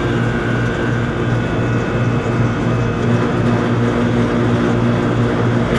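Air conditioner unit running: a steady electrical hum from the compressor over the rushing noise of the fan.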